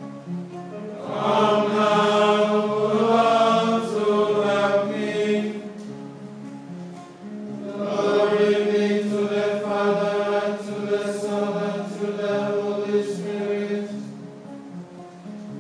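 Monks chanting together in two long sung phrases, swelling about a second in and again near eight seconds, over a held low note that carries on between the phrases.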